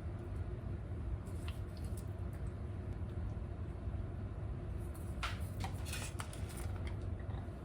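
Steady low hum of a kitchen range-hood ventilation fan, with a few light clicks and short handling sounds of dishes or utensils about five seconds in.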